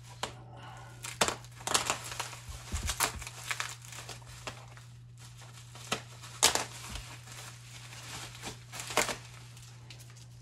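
Plastic and bubble wrap crinkling and rustling as hands pull it open and handle it, with a few sharper snaps now and then.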